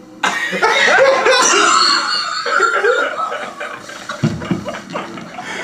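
Several men laughing hard together, breaking out suddenly just after the start and loudest in the first couple of seconds.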